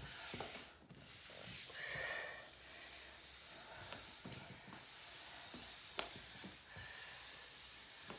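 Exercise sliders swishing across a hard wooden floor as a person walks a plank on their hands, with light taps of hands placed on the floor (a sharper one about six seconds in) and heavy breathing from the effort.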